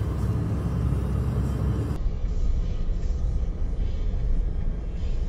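Steady low road and tyre rumble inside a moving car's cabin at highway speed. About two seconds in, the sound changes abruptly and loses its upper hiss.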